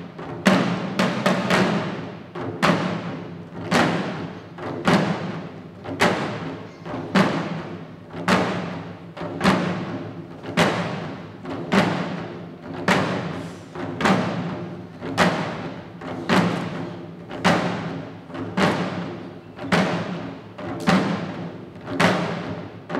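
Shishi odori deer dancers' chest-worn drums beaten together in a slow steady rhythm: a heavy stroke about once a second, each ringing briefly, with lighter strokes in between.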